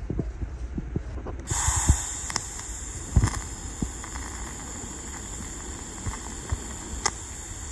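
TIG welding arc striking about a second and a half in, then hissing steadily, with a few sharp ticks. Low knocks of metal parts being handled come before the arc starts.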